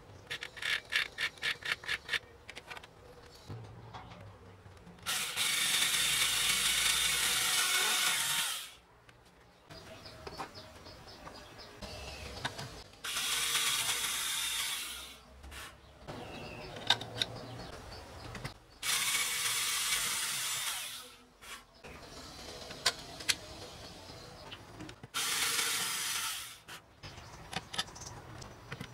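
Cordless drill running in several bursts of a few seconds each, drilling and driving screws into the wooden hull to fix aluminium brackets. A quick run of clicks comes near the start, and quieter handling noise fills the gaps between bursts.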